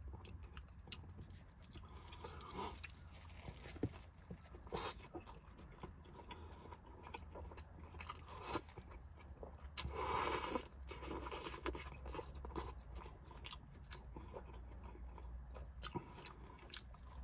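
A man biting into and chewing a sloppy, saucy burger, with faint wet mouth sounds and small clicks and a louder stretch about ten seconds in.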